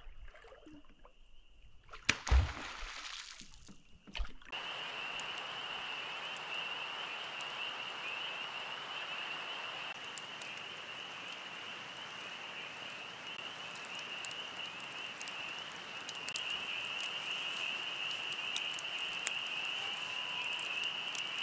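Campfire crackling with scattered sharp pops, over a steady high-pitched chorus that runs without a break. Before that, a single loud knock comes about two seconds in.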